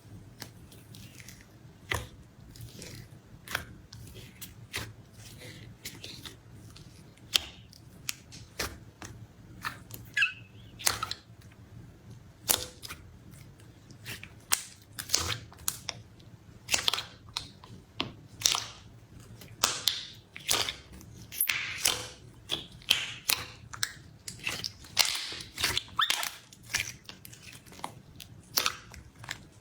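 Slime in a cup being pressed and poked, making sharp sticky pops and clicks, sparse at first and coming faster and louder from about halfway through.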